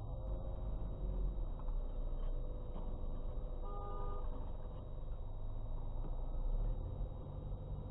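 Car interior road and engine noise from a car driving steadily, with one short car horn honk about halfway through.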